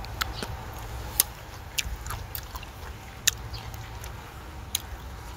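A person chewing a freshly picked cherry close to the microphone: irregular short wet clicks of the mouth, spaced about half a second to a second apart, over a steady low rumble.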